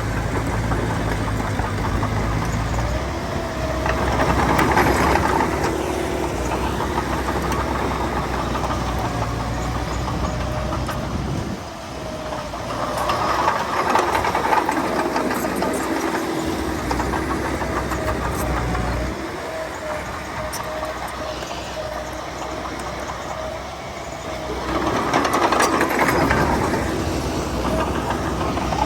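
Bulldozer's heavy diesel engine running steadily, rising three times in louder surges about ten seconds apart as it works under load pushing soil.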